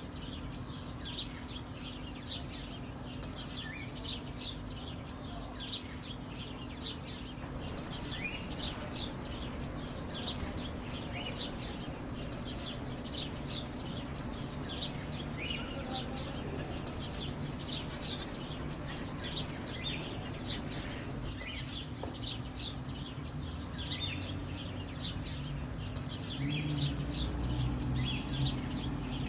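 Small birds chirping over and over, with chickens clucking at times, over a steady low hum.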